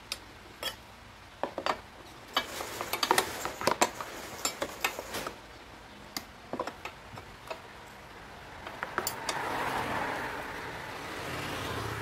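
Metal hand tools clinking and tapping on a scooter's headset lock nut and steering stem: a scattered run of sharp clicks and knocks, with a softer scraping rustle near the end.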